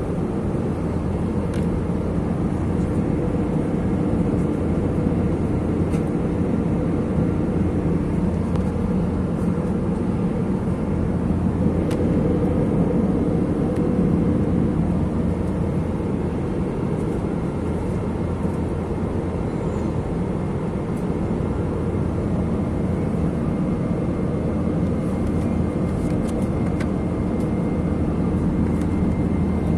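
Steady drone of a jet airliner in cruise flight, heard from inside the passenger cabin: even engine and airflow noise with a low constant hum.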